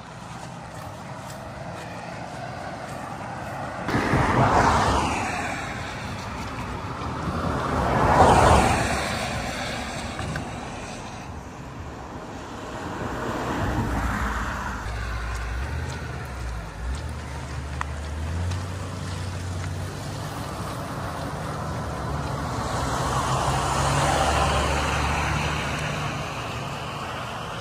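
Cars passing on a road one after another, each a rising and falling rush of tyre and engine noise: four pass-bys, the second the loudest, with a low engine hum underneath in the second half.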